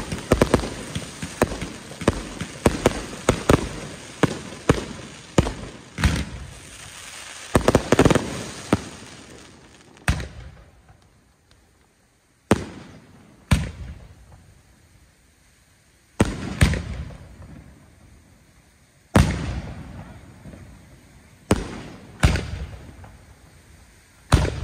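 Fireworks display: a quick run of overlapping bangs and crackles for about the first nine seconds, then single loud booms of shells every two to three seconds.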